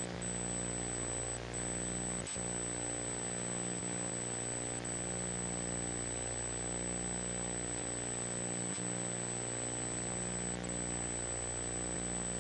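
Steady electrical hum with many overtones and a faint high whine on an open videoconference audio line that is carrying no voice. Two faint clicks break it.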